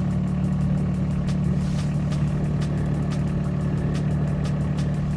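All-terrain vehicle's engine running steadily, heard from inside its cab as a low, even drone, with a rapid regular clicking of about four clicks a second over it.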